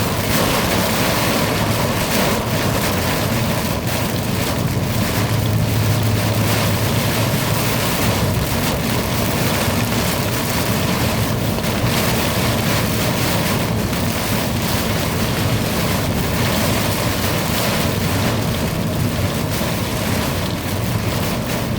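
Heavy thunderstorm downpour: a steady, loud rush of rain, with a brief low rumble about six seconds in.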